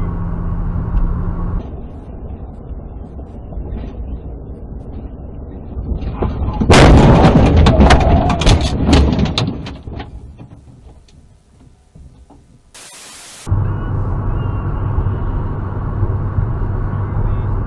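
Road noise inside a car, then a crash heard from inside the car: a dense run of loud crunching impacts for about three seconds as the car tumbles, dying away. Near the end a short burst of hiss, then steady road and engine noise from a car driving on a highway.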